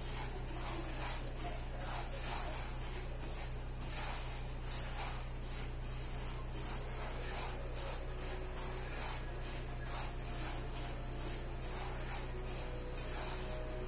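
A hand rubbing and raking dry couscous grains in a large bowl, working oil through them before steaming: a soft, irregular rustling of grains.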